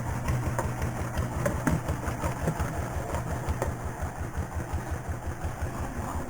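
A small boat's engine running steadily, with an even low putter of several beats a second.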